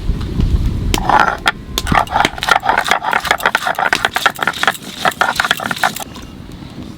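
Rapid, irregular clattering and scraping of hard objects, starting about a second in and stopping about a second before the end.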